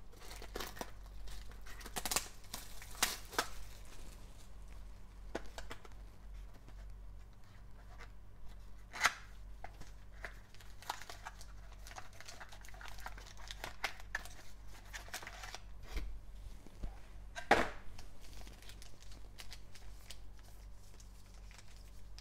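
Plastic shrink wrap torn off a cardboard trading-card box, then the box flap opened and foil card packs crinkling as they are handled. Irregular rustles and crackles, with a couple of louder, sharper snaps.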